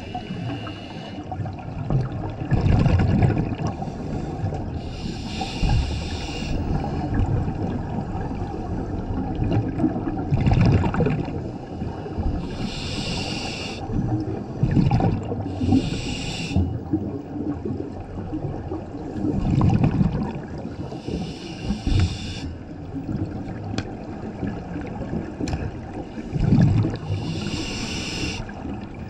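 Scuba diver breathing through a regulator underwater: a hissing inhalation every few seconds, alternating with low bubbling bursts of exhaled air.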